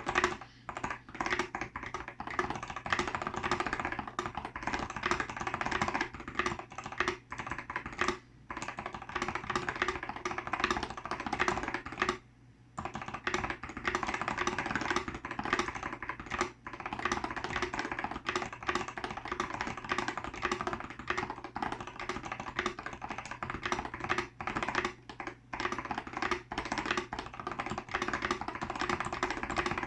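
Fast, continuous typing on an Apple M0110A keyboard with lubed Mitsumi Standard Mechanical Type 1 (tallboy) switches: a dense run of key clacks with a few brief pauses, the longest about twelve seconds in. All keys are unstabilized except the spacebar, whose stabilizer rattles.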